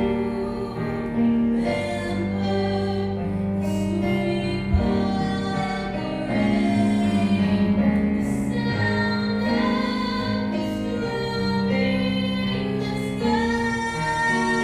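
A woman singing long held notes, some with vibrato, over instrumental accompaniment.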